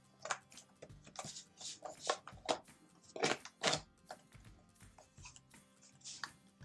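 A paperboard Tazo tea box being handled and torn open: a run of dry crackles and scrapes, with two louder tearing rips a little after three seconds in as the top flap comes away. Soft background music plays underneath.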